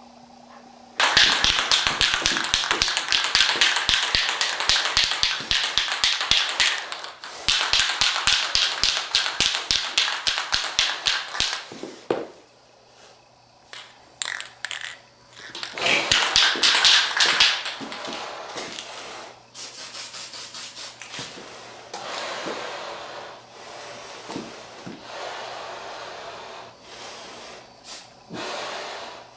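Aerosol spray-paint can being shaken, its mixing ball rattling in three fast rhythmic bursts of several seconds each, followed by quieter scattered handling clicks over a low hum.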